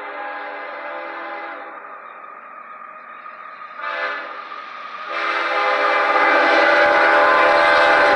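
Multi-chime air horn of a CSX GE ES44AH diesel locomotive sounding a crossing signal as the train approaches: a long blast ending about two seconds in, a short blast about four seconds in, then another long blast from about five seconds that runs on. Under it, the rumble of the approaching train rises near the end.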